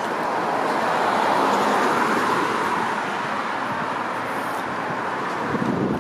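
Road traffic: a car passing on the street beside the sidewalk, its tyre and engine noise swelling about a second in and then easing off.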